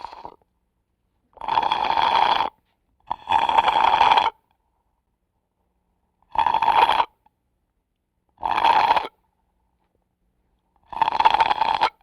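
Slurping through a drinking straw: five separate slurps, each half a second to just over a second long, with short silences between them.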